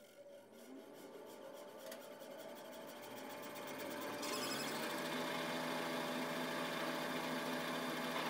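Martin surface planer (jointer) starting up with no wood being fed: the hum of the cutter block grows steadily louder for about four seconds as it spins up, then the machine runs steadily at speed.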